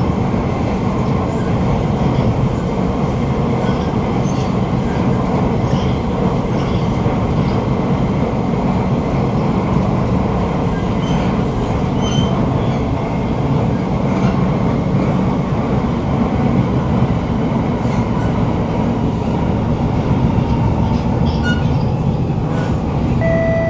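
Steady running noise of a Siemens C651 metro car heard from inside the cabin: the wheels rumble on the rails with a rough, grinding edge. The uploader puts this down to rough wheels, probably flats, though he doubts it sounds like flats. Right at the end a two-note chime starts.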